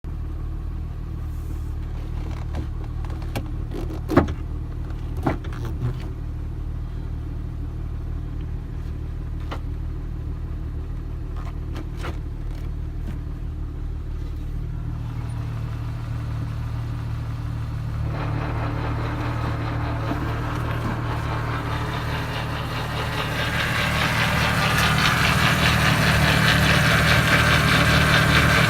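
1998 Jeep Wrangler engine running steadily, with a few sharp clicks about four to six seconds in. From about eighteen seconds a whirring grind builds and grows louder toward the end: the AX-15 manual transmission in reverse with the transfer case in neutral, a loud grinding/whirring whose cause the owner has not yet diagnosed.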